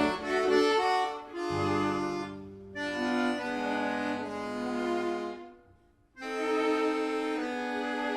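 Instrumental background music of slow, long held notes and chords, reedy like an accordion or bowed strings, dropping out briefly about six seconds in before resuming.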